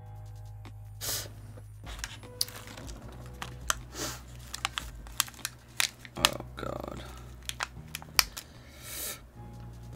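Small plastic packet of nuts being handled and torn open: crinkling and tearing with many sharp clicks and rustles, over a steady low hum.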